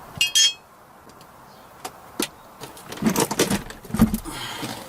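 Hand tools and a steel bolt clinking and rattling against metal while a battery hold-down bolt is worked loose: a short ringing clink at the start, scattered clicks, then a run of knocks and rattles ending in a heavier knock about four seconds in.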